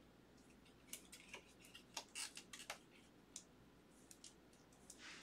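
Faint, scattered clicks and light scrapes of a trading card and its clear plastic sleeve being handled, most of them between one and three seconds in.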